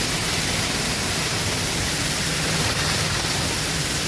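High-pressure water jet hissing steadily from a brass drain-jetter nozzle, spraying onto soil and leaves.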